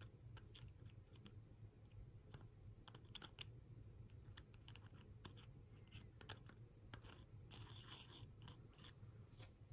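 Near silence with faint, scattered light clicks and scratches: a needle-tip oiler touching a fan motor's metal bearing bracket as oil is put into the bearing.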